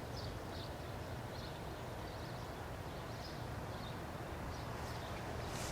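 Outdoor background: a steady low rumble of noise with faint, high, irregular chirps over it.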